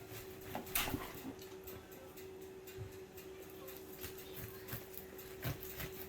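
Quiet kitchen handling: a few faint clicks and knocks, one louder about a second in, over a steady low electrical hum.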